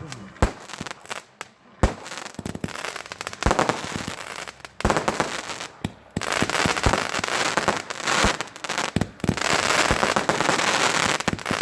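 Fireworks display: a run of sharp bangs from shells bursting, with dense crackling from about six seconds in.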